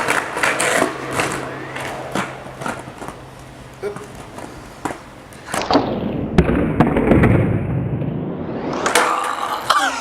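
Skateboard wheels rolling on hard ground, with sharp clacks of the board popping and landing scattered throughout. The rolling grows louder about halfway through.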